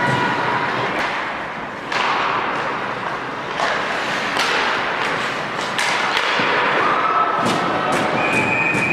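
Live ice hockey play: skates scraping the ice and sticks and puck knocking sharply several times, over a steady din of arena noise.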